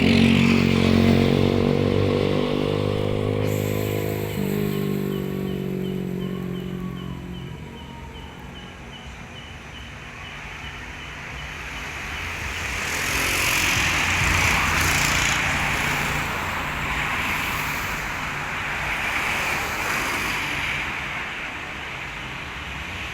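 Road traffic passing on a busy highway. A vehicle engine runs loudly close by at first, rising slightly in pitch before fading, and further vehicles then go by with a swelling hiss of tyres.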